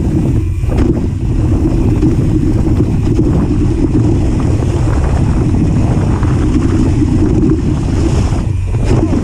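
Steady, loud wind rumble on a GoPro Hero5 Session's microphone from a mountain bike descending fast, mixed with the tyres rolling over a leaf-covered dirt trail and light rattles from the bike.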